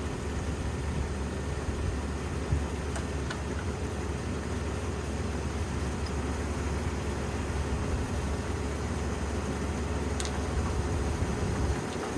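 Combine harvester running steadily, its engine a low, even drone.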